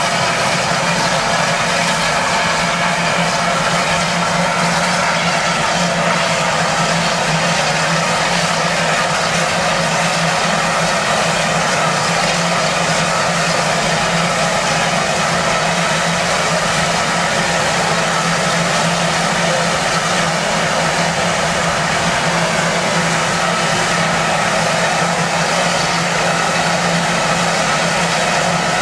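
Standing Lancashire & Yorkshire Railway steam locomotive giving off a steady hiss with a low hum underneath, unchanging throughout.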